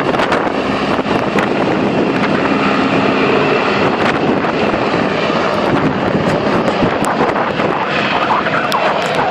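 Helicopter's rotor and engine running with a loud, steady noise, with wind buffeting the microphone.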